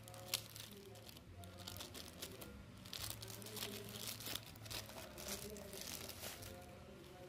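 Clear plastic packaging bag crinkling and rustling as it is handled, in irregular crackles that grow busier about halfway through, with one sharp click about a third of a second in.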